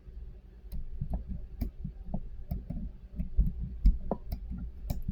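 Number wheel of an Everbilt combination barrel bolt being dialed backwards, clicking through its positions irregularly, about three clicks a second with soft low knocks from handling, while a shim held against the wheel feels for the gate that gives the combination.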